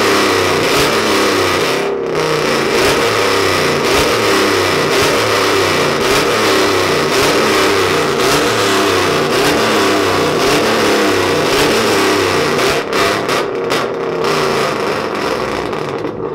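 Vehicle engine revving hard and repeatedly, loud and continuous, with the pitch rising and falling.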